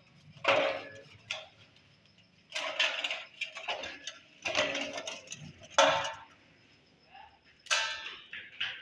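A string of uneven metallic clinks and scrapes, some ringing briefly, as motorcycle air-filter parts and tools are handled and scrubbed clean with petrol.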